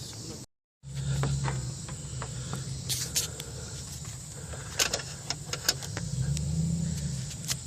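Scattered clicks and light knocks of hands and tools working on car parts under the hood, over a steady low hum. The sound cuts out completely for a moment about half a second in.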